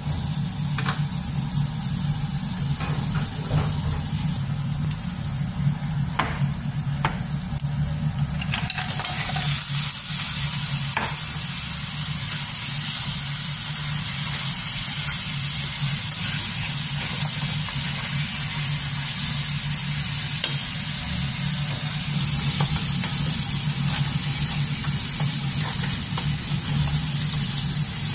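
Onions, garlic and ginger sizzling in hot oil in a nonstick wok, with a wooden spatula tapping and scraping the pan. About nine seconds in the sizzle grows louder and steadier, with whole raw blue crabs frying in the pan, and a steady low hum runs underneath.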